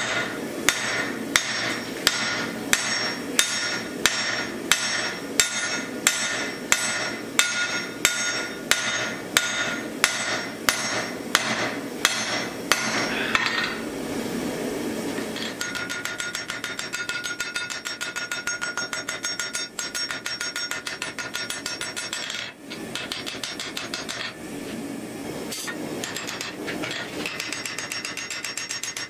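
Hand hammer striking a glowing steel axe block on an anvil, the anvil ringing with each blow: steady heavy blows about every two-thirds of a second for the first half. After a short break comes a rapid run of lighter, closely spaced blows on a punch driven into the hot steel to open the axe eye.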